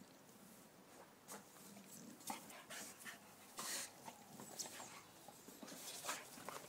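Faint sniffing of Staffordshire bull terriers nosing through grass: short breathy sniffs at uneven intervals, roughly one a second.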